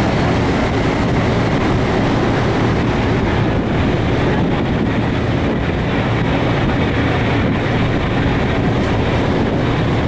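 Steady rushing noise on the open deck of a moving ferry: wind on the microphone mixed with the ship's engine drone and the churn of its wake, unbroken and even in level.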